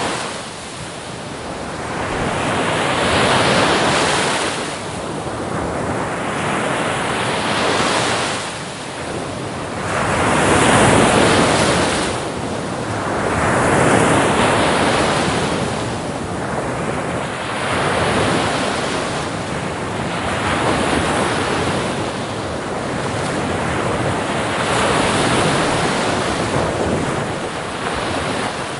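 Sea waves breaking on a shore. A surge of surf comes every three to four seconds, each one swelling and falling away over a steady wash.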